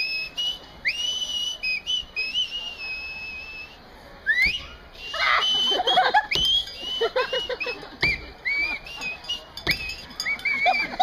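High whistling from the performers: a string of short whistle notes, some held and some swooping sharply up or down, with a stretch of voices about halfway through.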